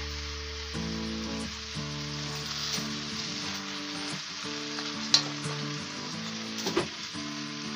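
Shredded cabbage and carrots sizzling in a hot wok as they are stirred with a silicone spatula. Two sharp clinks of cookware come about five seconds in and again a little before the end.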